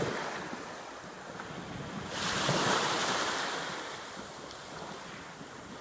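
Gulf surf washing onto the beach, one wave swelling about two seconds in and fading away again, with wind buffeting the microphone.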